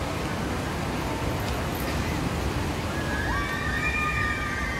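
Amusement park ambience: a steady rushing noise, with a high-pitched, drawn-out cry that rises in about three seconds in and holds until near the end.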